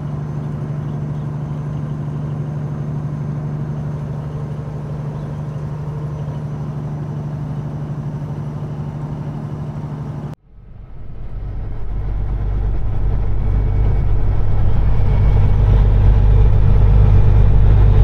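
Inside the cab of a Peterbilt 389 with a Caterpillar 6NZ inline-six diesel, cruising at highway speed: a steady engine and road drone. About ten seconds in the sound cuts off abruptly and comes back as a deeper, lower engine drone that keeps growing louder.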